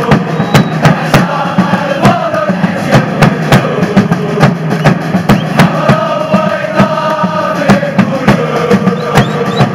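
Crowd of football ultras chanting together to a steady bass-drum beat.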